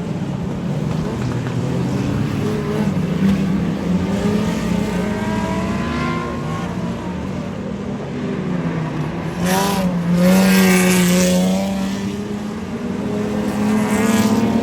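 Speedway race cars running laps of the oval, several engines droning at once with pitches rising and falling as they pass. About ten seconds in, one car passes close and loud with a falling pitch, and another pass builds near the end.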